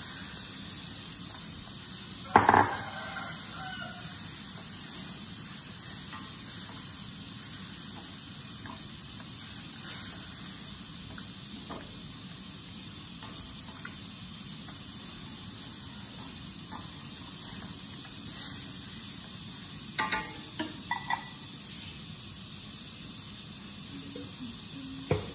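Chicken pieces frying in a wok of soy sauce and chillies over a gas flame: a steady sizzling hiss. A loud metallic clank about two seconds in, and a few light knocks of chopsticks against the wok near the end.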